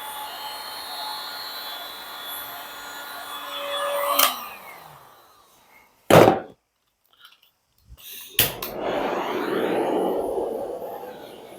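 A small handheld electric blower, a heat gun or hair dryer of the kind used on resin, runs with a steady whine. It is switched off about four seconds in and spins down with a falling pitch. After a short silence there is a sharp knock, a couple of clicks, then a rush of blown air that swells and fades.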